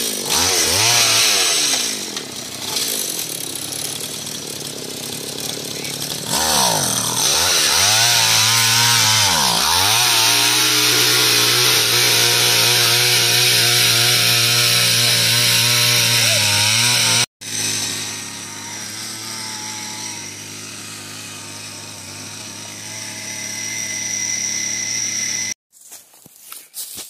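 Gas-powered auger engine revving up and down, then running steadily at high speed as the bit bores into the wet sticks and mud of a beaver dam. It cuts off abruptly about 17 seconds in, and a quieter, steady engine run follows until near the end.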